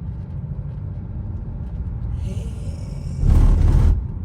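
Steady low rumble of road traffic, with a loud rushing swell lasting under a second about three seconds in.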